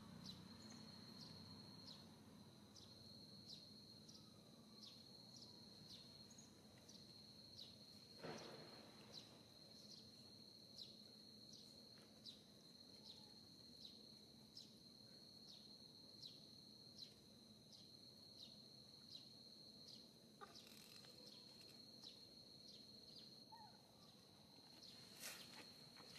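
Faint outdoor insect drone: a steady high-pitched tone with soft regular ticks about every half second to second. A soft knock comes about eight seconds in, with a few sharp clicks near the end.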